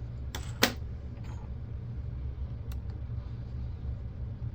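Camcorder parts being handled during disassembly: two sharp clicks about half a second in and a faint one later, over a steady low hum.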